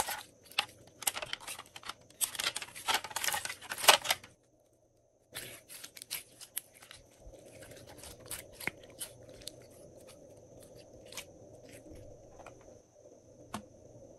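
Glossy slime squeezed and kneaded by hand, giving dense sticky crackles and pops. After a short break about four seconds in, sparser clicks and pops go on.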